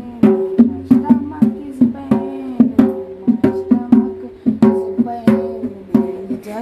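Dholak, a two-headed barrel hand drum, played with bare hands in a steady rhythm of about three to four strokes a second, each stroke ringing with a low pitched tone.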